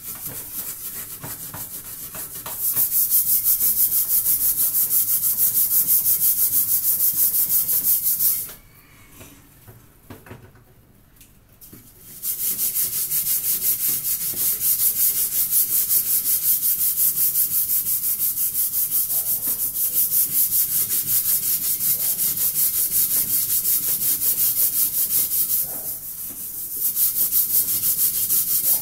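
Hand scrubbing the blackened bottom of a metal pot, coated in a white cleaning paste, with fast, even back-and-forth strokes. The scrubbing stops for a few seconds about a third of the way in and eases briefly near the end.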